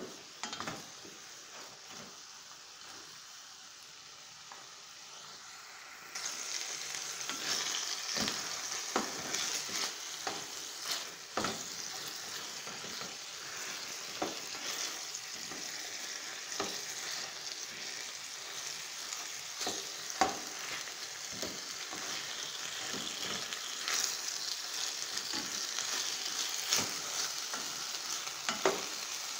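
Chicken pieces sizzling in hot oil and sauce in an enamelled pan, stirred and turned with a utensil that scrapes and clicks against the pan. The sizzle becomes louder about six seconds in.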